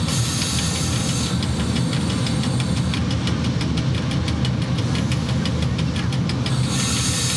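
Cab noise of an FS E.656 electric locomotive rolling slowly: a steady low rumble from the motors and running gear, with many small clicks throughout.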